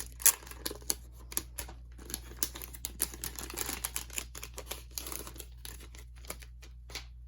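Paper and plastic packaging being handled: a busy run of small clicks and taps with crinkly rustling, dying away near the end.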